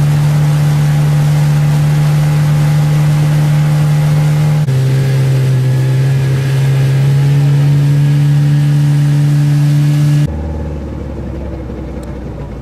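Motorboat engine running steadily at speed, its pitch dropping a little about halfway through. Near the end it cuts off abruptly to a quieter low hum.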